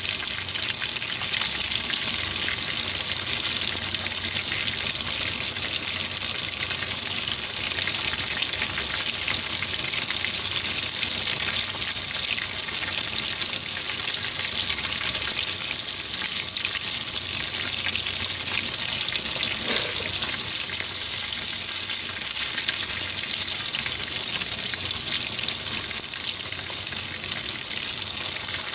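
Floured black sea bream trimmings deep-frying in a pan of hot oil: a loud, steady sizzle.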